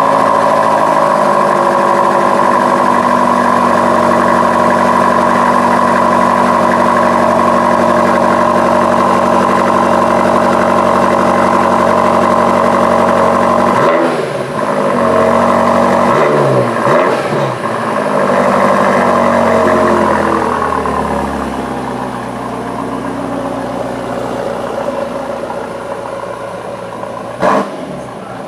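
BMW M5 Competition's 4.4-litre twin-turbo V8 running at a steady high idle. About 14 s in it is blipped several times, the revs falling and rising, and after about 20 s it settles to a lower, quieter idle. There is one short, loud blip near the end.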